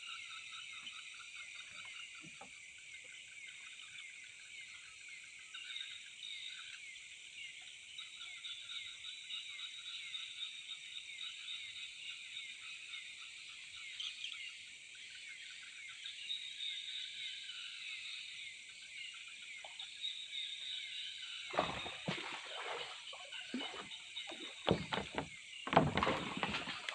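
Steady shrill night chorus of insects and frogs, many overlapping trills. In the last five seconds a run of sudden loud knocks and splashy noises cuts in, the loudest near the end.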